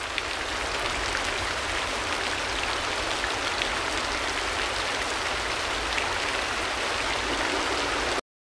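Steady rain falling, with many small drop strikes ticking through it; it cuts off abruptly near the end.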